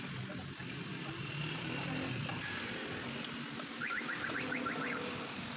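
Steady street traffic: vehicle engines running in a constant wash of road noise. About four seconds in comes a quick run of about seven short rising chirps.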